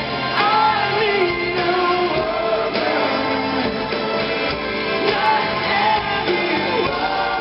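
Live pop-rock band playing with sung vocals, guitars and drums, recorded from the audience in a large arena.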